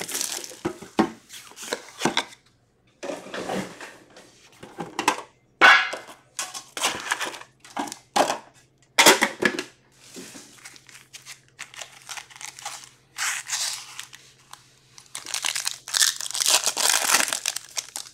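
Foil wrappers of hockey card packs crinkling and tearing as they are opened by hand, in irregular bursts, with a few sharp knocks from handling the metal card tin.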